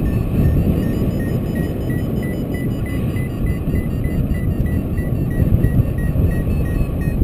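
Wind buffeting the microphone in flight, with a paragliding variometer beeping steadily underneath, about five short high beeps a second, stepping slightly up and then down in pitch. This is the climb tone of a glider rising in lift.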